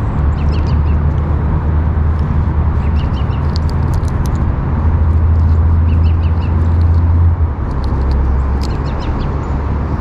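Steady, loud low outdoor rumble, with a few short groups of small bird chirps about three and six seconds in.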